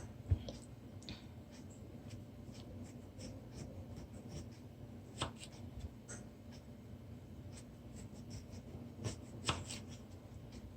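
A knife slicing a lemon thinly on a cutting board: a run of light, irregular cutting taps with a few louder knocks of the blade on the board.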